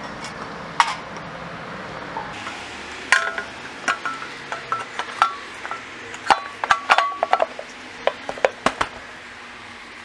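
Small metal parts and hand tools clinking and clicking while a scooter's plastic transmission cover is fitted back on, many sharp knocks with brief ringing, thickest from about three to nine seconds in.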